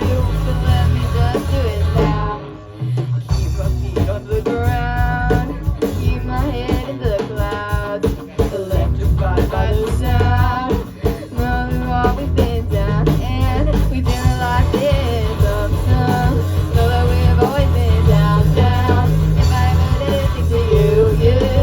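Rock song with singing and guitar over a steady beat; the music thins out briefly about two and a half seconds in.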